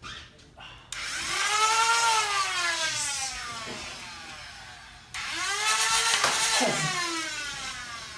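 Nerf Stryfe's flywheel motors revving, twice: each time a sudden whine that rises briefly and then winds down in pitch for a few seconds, first about a second in and again about five seconds in. This is a test rev showing the blaster works on its new batteries.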